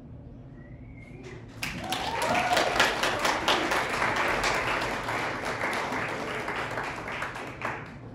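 Audience applauding, starting suddenly about a second and a half in and stopping about six seconds later.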